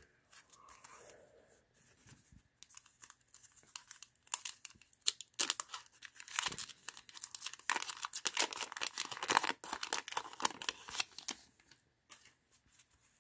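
A wax-paper trading card pack being torn open and its wrapper crinkled, with dense crackling from about four seconds in to near the end.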